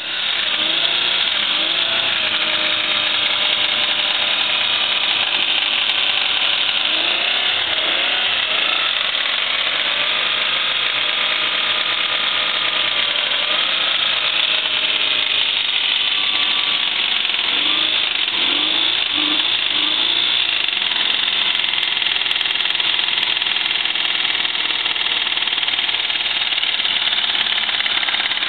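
Toyota 4Runner's 3.0-litre V6 running steadily with a rod knock: a worn connecting-rod bearing, damaged by the engine being run with coolant in the oil from a blown head gasket.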